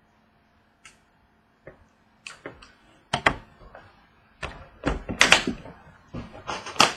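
A trading-card briefcase being opened and its contents handled: a series of sharp clicks, snaps and knocks. They are sparse at first and come thicker and louder from about two seconds in.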